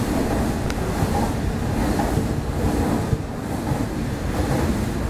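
Nankai Airport Express train running at speed, heard from inside the carriage: a steady rumble of wheels and running gear.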